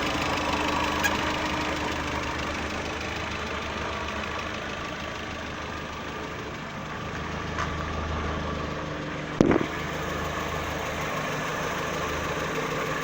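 Volkswagen Saveiro 1.6 engine idling steadily in neutral, with the gearbox now free of the growl it made at idle with the clutch released, after its bearing was replaced. A single short knock comes about nine and a half seconds in.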